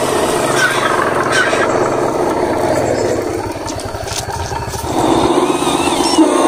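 Engine-like drone of RC model dump trucks driving over muddy dirt. It runs steadily, dips about three and a half seconds in, then a louder, deeper drone picks up from about five seconds in.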